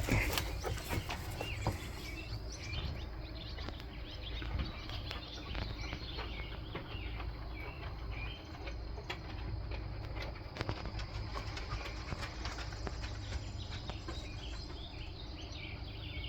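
Small birds chirping in many short, quick, high notes, with a few light clicks and a low background rumble.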